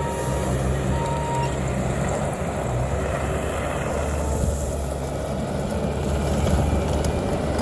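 Bobcat T650 compact track loader's diesel engine running steadily under work. Two short high beeps near the start.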